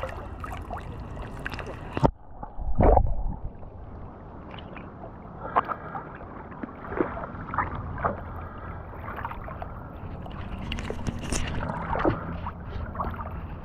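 Water sloshing and lapping right at a GoPro held at the surface by a swimmer, with scattered small splashes. A sharp knock comes about two seconds in, then a louder, muffled splash.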